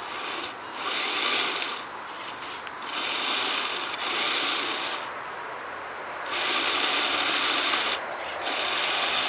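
Tamiya Tundra RC truck's electric drivetrain whirring and grinding in on-off bursts of throttle, its tires scrubbing and churning against brush as it struggles and gets stuck.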